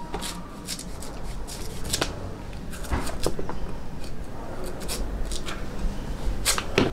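Kitchen knife shaving the papery sheaths off a fresh bamboo shoot: irregular dry scraping and rustling strokes, a few a second.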